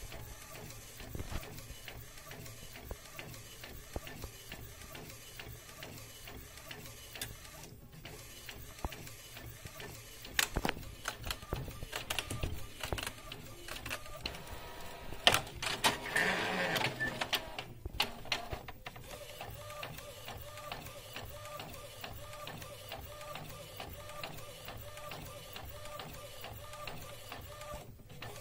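Epson L800 inkjet printer printing on a tray of PVC ID cards: the print-head carriage shuttles back and forth with an even, repeating whir. There is a louder stretch with sharp clicks a little past halfway.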